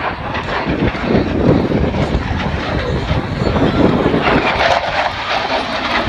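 F-16 fighter jets flying past, a loud rushing jet engine noise with no clear pitch that swells a little about a second and a half in and again around four seconds.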